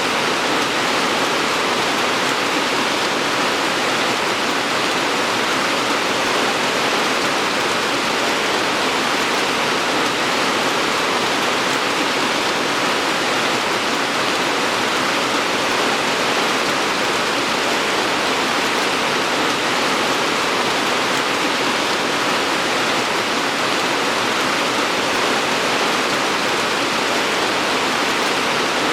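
Steady rain falling, an even unbroken hiss without distinct drops or pauses.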